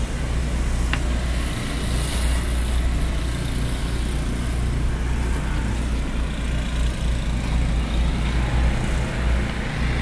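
Wind buffeting the microphone outdoors in a snowstorm's aftermath: a steady low rumble with a hiss over it, and one short click about a second in.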